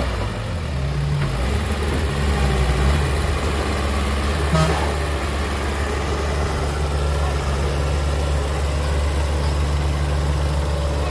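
Heavy diesel engine running low and steady. Its note shifts over the first few seconds, there is a brief knock about halfway through, and then it settles into an even hum.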